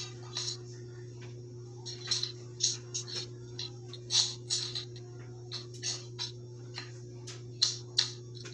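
Irregular short, crisp rustles and taps of a toddler handling and turning the pages of a picture book, over a steady low hum.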